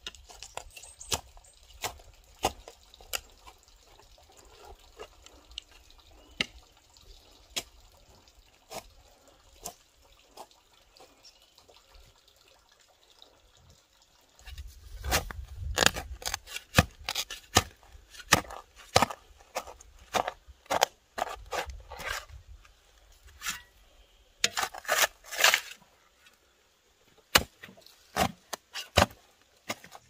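A run of sharp knocks and clacks: scattered at first, then coming in dense, irregular clusters from about halfway through.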